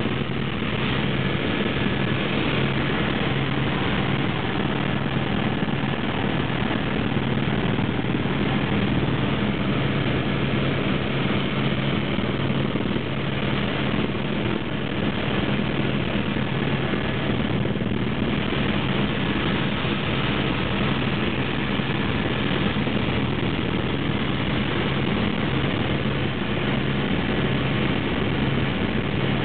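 Light aircraft's engine droning steadily, heard from inside the cockpit together with the rush of air past the cabin.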